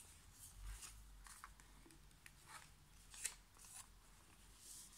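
Faint rustling and creasing of a square sheet of origami paper being folded, in short scratchy strokes, with one sharper crackle about three seconds in.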